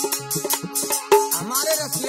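Instrumental passage of rasiya folk music: a dholak drum beating with bending bass strokes under held harmonium notes, and a chimta's metal jingles keeping an even rhythm of about five strokes a second.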